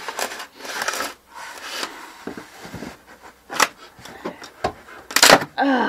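Old RV water heater scraping and rubbing against the plywood floor of its compartment as it is worked free and slid out, with a sharp knock about halfway through and another near the end.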